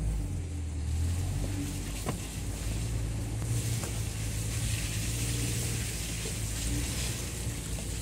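4x4 vehicle driving on a rough dirt road, heard from inside the cab: a steady low engine hum under road noise, with a single sharp knock about two seconds in.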